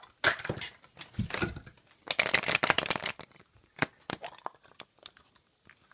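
Hollow plastic surprise-egg shells clicking and rattling as they are handled, with a dense stretch of rattling about two seconds in and a few single clicks around it.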